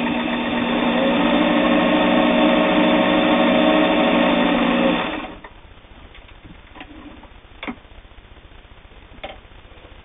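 Singer 401A sewing machine running at speed, sewing a straight stitch through flannel: a steady motor whir with the needle's rapid chatter, picking up speed about a second in and stopping about five seconds in. Two short clicks follow later as the machine is handled.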